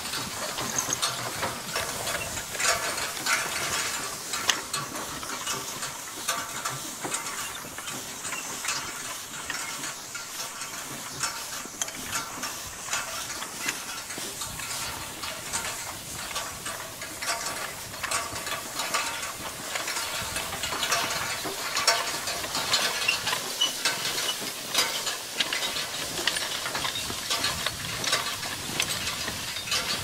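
New Holland bar hay rake working behind a horse-drawn forecart: a continuous rattling clatter of metal tines and gearing, with dry hay rustling and swishing through the rake.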